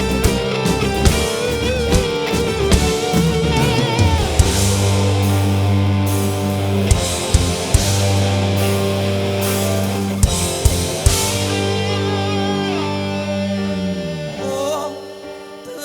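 Live rock band playing: electric guitar lead over bass and drums, with some singing mixed in. Near the end the band thins out and gets quieter.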